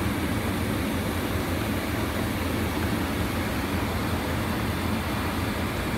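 Steady low hum and hiss of a car idling close by, engine and air conditioning running.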